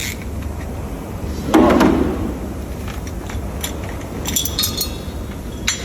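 Metal parts and tools being handled while a truck axle hub odometer is changed: a dull clunk about one and a half seconds in, then several short ringing metallic clinks near the end, over a steady low hum.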